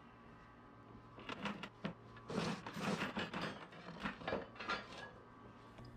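Metal Danforth anchor being handled and slid on a plywood board, a string of knocks and scrapes of metal on wood starting about a second in and stopping near the end.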